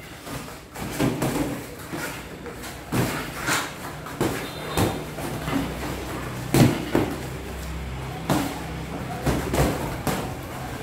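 Boxing gloves landing on gloves and headgear during sparring: irregular thuds and slaps, about ten in all, some in quick pairs, over a steady low hum.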